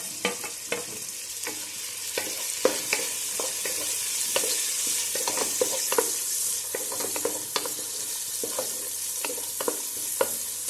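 Chopped tomato and golden caramelized onion sizzling in hot oil in a pan, with a spoon clicking and scraping irregularly against the pan as it is stirred.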